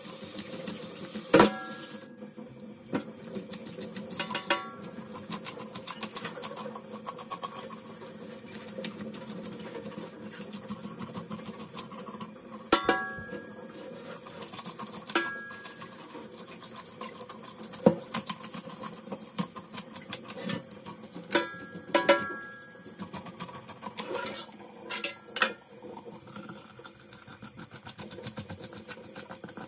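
Knife work on a large snapper: a steady rapid scraping and clicking, broken by about eight sharp knocks that ring briefly like metal. Soft background music plays underneath.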